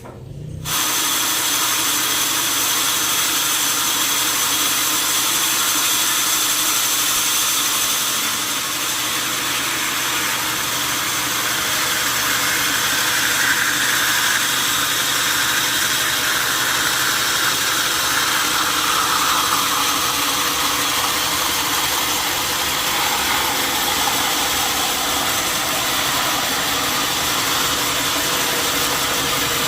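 Sawmill machinery running loud and steady, coming in sharply about a second in.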